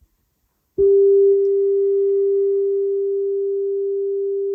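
Nakamichi Dragon cassette deck's built-in calibration test-tone generator: a single steady pure tone that switches on abruptly under a second in and holds, dipping slightly in level a moment later, used to set recording level for a type 1 tape.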